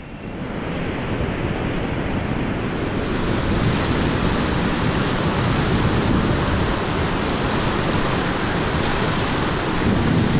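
Whitewater rushing and churning around a raft in a river rapid, a steady heavy roar of water that swells up over the first second.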